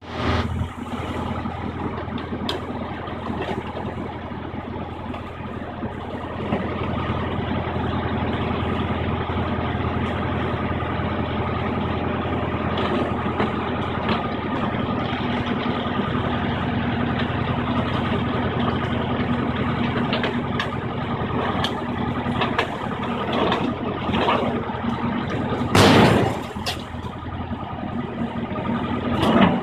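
Diesel engine of a high-reach demolition excavator running steadily, with scattered knocks and clatter as its bucket breaks away masonry at the roofline. A louder burst of noise about 26 seconds in and another near the end.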